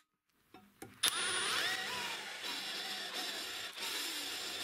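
Drill press clicking on about a second in, its motor whine rising as it spins up to speed, then running steadily with a step drill bit set against a steel plate.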